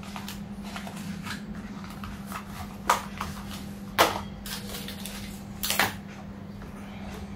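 Small cardboard boxes and packaging handled and set down on a tiled floor: light rustling and tapping, with three sharp knocks about a second apart in the middle, over a steady low hum.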